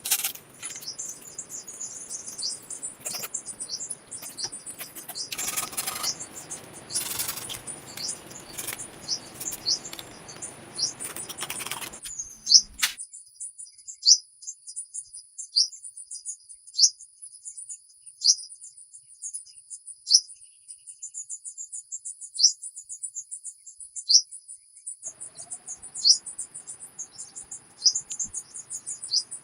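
Small birds chirping, a short falling note roughly every second, over a steady high-pitched insect trill. Through the first twelve seconds there is also rustling with a few sharp knocks, which cuts off abruptly and returns faintly near the end.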